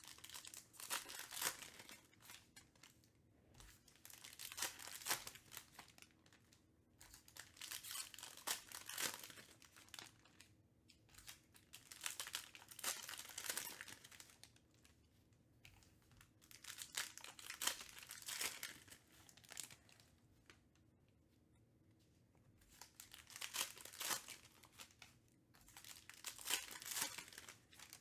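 Foil wrappers of 2020-21 Panini Mosaic basketball card packs being torn open and crinkled by hand, in bursts of a second or two every few seconds with quiet gaps between, one pack after another.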